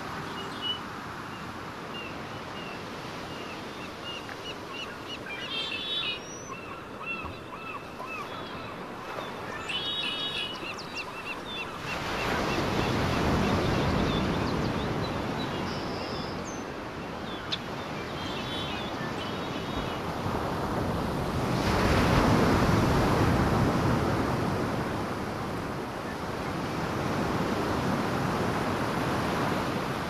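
Ocean surf washing ashore, swelling loudly twice, about halfway through and again later. In the first half a few short bird chirps sound over the waves.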